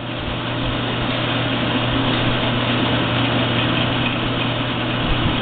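Jet 8" x 13" horizontal metal-cutting band saw running, with a steady motor hum under the even whir of the blade and belt drive. It gets a little louder in the first second, then holds steady.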